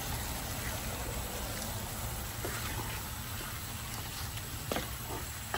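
Chana dal and fenugreek leaves sizzling steadily in a frying pan while a wooden spoon stirs them, with a few light taps of the spoon against the pan.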